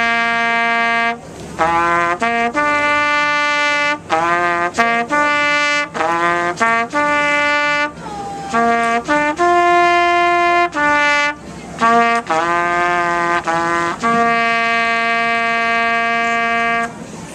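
A solo brass instrument plays a slow melody of separate notes, some short and some held, and ends on a long held note near the end.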